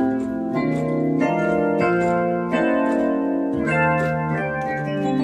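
Korg i30 arranger keyboard being played by hand: organ-like chords held and changed every second or so. It is sounding normally again after a "no audio" fault was repaired (output op-amp and muting transistors replaced).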